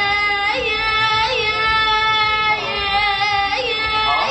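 A high-pitched voice singing long, held notes that swoop briefly in pitch about once a second, without clear words.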